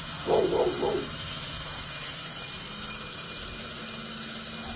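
Box fan fitted with an old steel-spoked bicycle rim in place of its blades, running steadily with a whir and a fast, even flutter. A short bark cuts in about a third of a second in.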